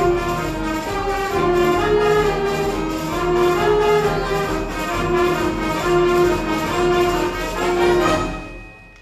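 A school band of saxophones and brass playing live over a steady beat, closing on a final held chord that cuts off a little after eight seconds and dies away in the hall.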